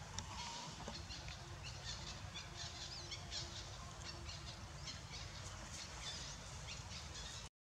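Birds chirping outdoors: many short, high calls, some sliding in pitch, several a second, over a low steady background of outdoor noise. The sound drops out abruptly near the end.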